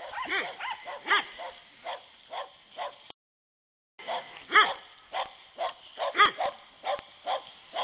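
A pack of dogs barking and yipping, with many short, sharp calls at different pitches, several a second and overlapping. The sound cuts out completely for just under a second about three seconds in.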